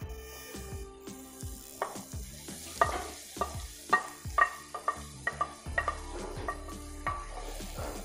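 Grated carrot frying in melted butter in a stainless steel pot, a light sizzle, with a run of knocks and scrapes against the pot as grated potato is tipped in and stirred with a wooden spatula.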